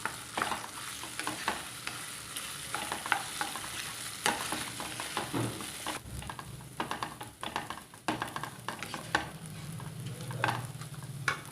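Soaked basmati rice frying in ghee in a pan on a medium flame, sizzling steadily while it is stirred, with many short scrapes and knocks against the pan. The sizzle eases a little about halfway through.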